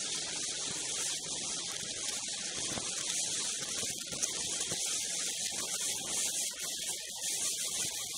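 Steady rushing hiss of wind and snow while a snowmobile is ridden at speed, with wind buffeting the helmet-mounted camera's microphone.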